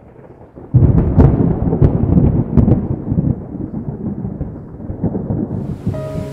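A thunderclap: a loud low rumble breaks in suddenly about a second in, with a few sharp crackles, and rolls away over several seconds. Near the end a steady hiss of heavy rain comes in.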